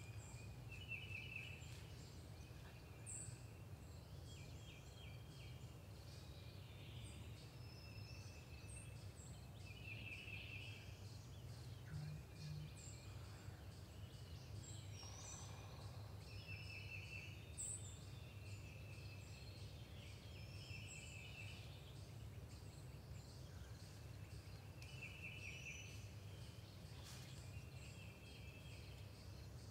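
Spring woodland birdsong: a short, dry, high trill repeated every two to three seconds, with scattered thin high chirps from other birds, over a faint steady low rumble.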